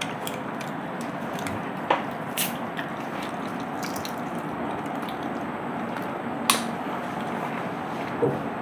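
Eating sounds as puris are torn and chewed with the hands, with a few sharp clicks about two seconds in and again past six seconds, over a steady background hiss.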